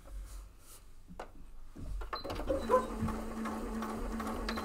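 Electric sewing machine starting about two seconds in and running steadily, stitching through a thick stack of fabric and foam layers.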